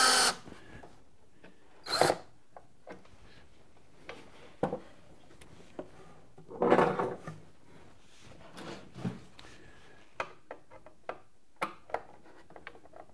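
A cordless drill driving a drawer-slide screw stops right at the start. After it come scattered clicks and knocks of tools and wood being handled, with a louder clatter about seven seconds in.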